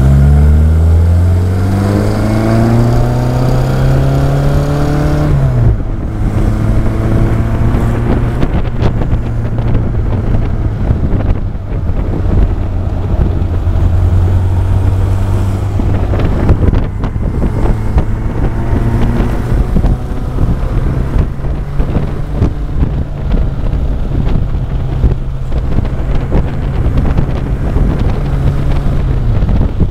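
Austin-Healey Sprite's modified 1275 four-cylinder engine with a downdraft Weber, accelerating hard: the revs climb for about five seconds, drop sharply at a gear change, then the engine pulls on at a steady, slowly rising note before easing off near the end. Wind rushes over the microphone in the open car.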